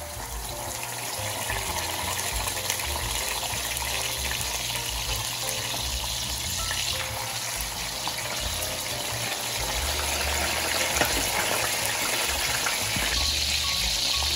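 Atlantic mackerel fillets frying in hot cooking oil in a shallow pan: a steady sizzle of bubbling, spattering oil. It grows louder as the second fillet goes in and the oil comes fully to the fry.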